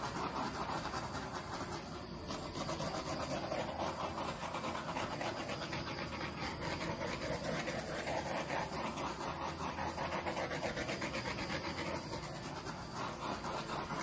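Handheld torch flame hissing steadily with a slight flutter as it is played over wet acrylic pour paint, a step that pops air bubbles and brings out lacing in the paint.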